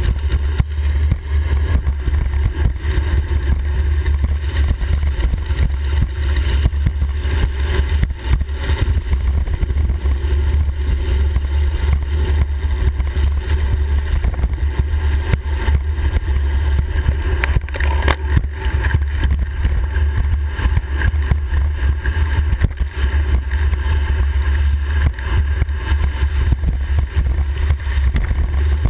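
Wind buffeting the microphone of a handlebar-mounted camera on a bicycle descending at speed: a steady, loud, low rumble that never lets up.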